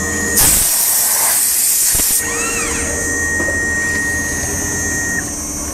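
A loud burst of compressed-air hiss on a CNC router, starting about half a second in and lasting under two seconds. Under it is a steady machine hum with a high whine, and a thin steady tone that cuts off near the end.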